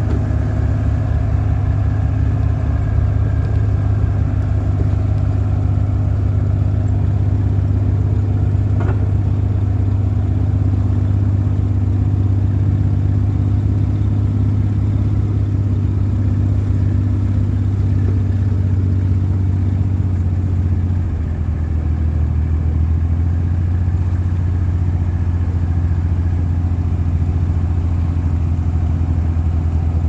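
Vehicle engine running steadily with a strong low hum; about 21 seconds in its pitch drops a little and the level dips briefly.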